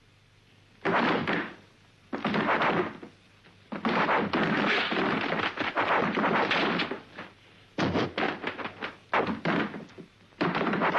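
Kung fu film fight sound effects: dull punch and block hits and swishes come in separate bursts, then a fast flurry of sharp hits near the end.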